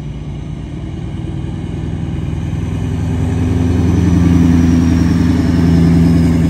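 Lifted pickup truck driving slowly past, its engine a steady low drone that grows louder over the first few seconds as it nears.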